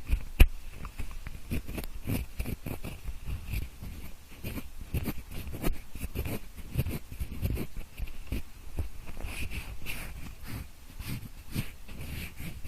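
Pencil scratching, rubbing and tapping in quick, irregular strokes, done to imitate the sound of an ear being cleaned, with a sharper click about half a second in.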